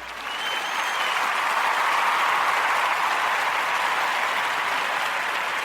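Crowd applause and cheering rising in the first second and holding steady, with a short whistle about half a second in.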